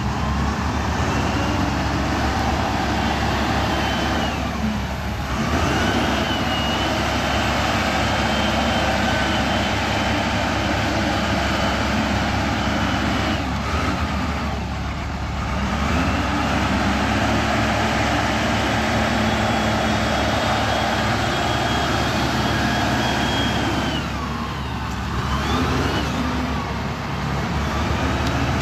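Diesel engine of a Case wheel loader running hard at high revs while loading, with a high whine on top. Three times, about ten seconds apart, the revs and level dip briefly and then climb again as the loader changes between its work moves.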